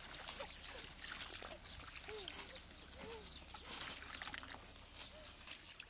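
Short animal calls scattered throughout, some high and chirping, some lower and arched, over faint splashing of water and mud as a muddy pond is bailed out with a bucket.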